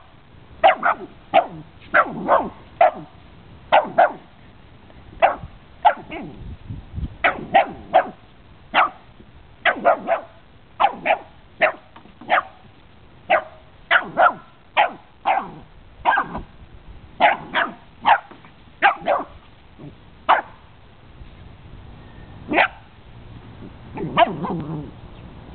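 A dog barking at a cat: short, sharp barks, many of them in quick runs of two to four with brief pauses between runs. The barks thin out to single ones in the last few seconds, ending with a lower, longer vocalisation.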